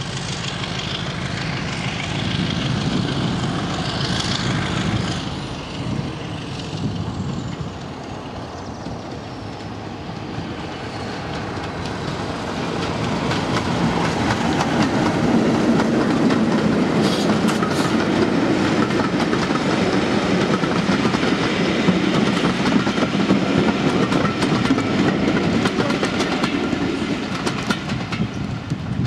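British Rail Class 33 diesel locomotive 33201 under power with a passenger train, its Sulzer eight-cylinder engine running steadily and growing louder from about halfway as it passes close by. Near the end the coaches' wheels clatter over the rail joints.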